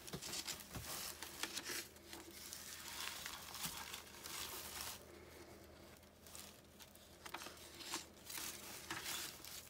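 Paper pages of a handmade junk journal being turned and handled, rustling and crinkling in irregular bursts.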